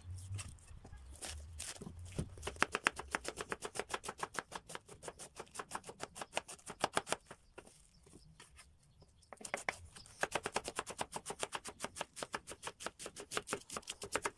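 Kitchen knife shredding cabbage on a bamboo cutting board: quick, even chopping strokes, about seven a second, knocking on the board. The chopping stops for about two seconds midway, then starts again.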